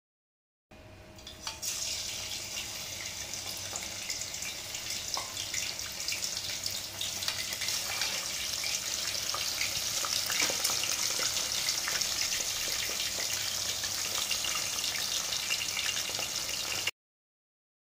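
Chicken pieces deep-frying in hot oil in a steel pan, a steady sizzle full of crackles and pops. It starts about a second in, quickly builds to full strength, and cuts off abruptly shortly before the end.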